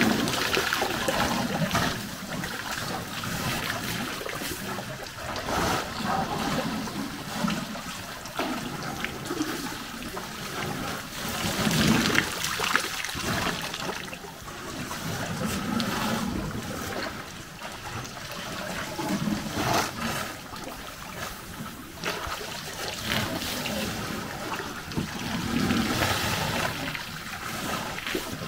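African elephants drinking at a waterhole: water splashing and trickling as their trunks draw it up and spill it, swelling and fading irregularly.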